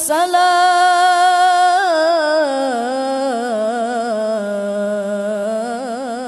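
Male qari's solo voice in melodic Qur'an recitation (tilawah), holding one long ornamented vowel: a steady high note for nearly two seconds, then stepping down in pitch with trills and wavers, unaccompanied.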